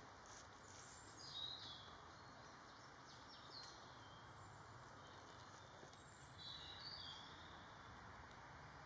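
Faint bird calls: a few short, high chirps with sliding pitch about a second and a half in, again around three and a half seconds, and a small cluster near seven seconds, over a steady low hiss of background noise.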